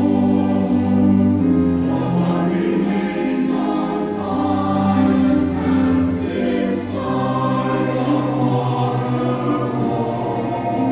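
Church choir singing sustained chords with instrumental accompaniment.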